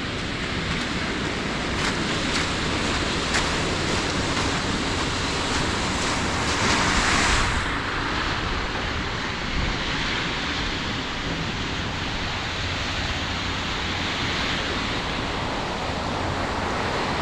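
Surf breaking on a sandy beach with wind buffeting the microphone, a steady rushing noise with a low rumble; a louder surge comes about seven seconds in.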